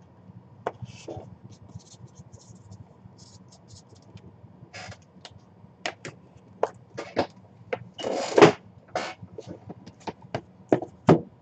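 Small cardboard hockey-puck boxes being handled on a tabletop: scattered knocks and taps as boxes are picked up and set down, with a half-second scrape about two-thirds of the way through, the loudest moment, as a box slides.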